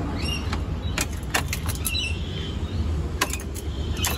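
Scattered sharp clicks and knocks, unevenly spaced, over a steady low rumble; no engine cranking or running.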